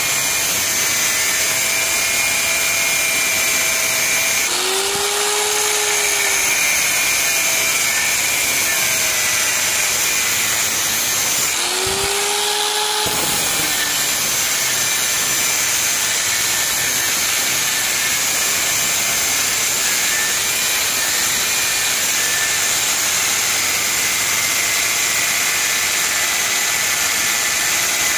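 Angle grinder with a cut-off disc cutting into a rusty truck spring steel bar, a steady high whine with the hiss of the disc in the steel. The pitch of the motor shifts twice, around five and twelve seconds in, as the load on the disc changes.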